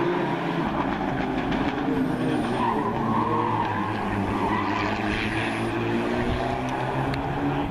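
Rally car engine revving hard up a climb and falling back at gear changes, its pitch rising and dropping again and again under a haze of road noise.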